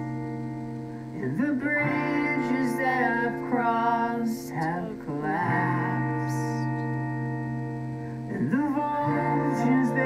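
A song plays: a singing voice with long held notes over guitar accompaniment.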